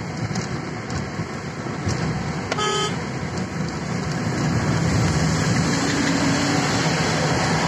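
Vehicle driving on a wet road, heard from inside: steady road and engine noise that grows louder from about halfway through, with one short horn toot a little under three seconds in.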